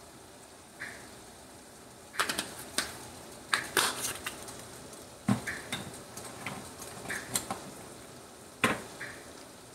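Irregular sharp clicks and clatters of a plastic spice shaker and utensils being handled over a frying pan, starting about two seconds in, the last sharp knock near the end.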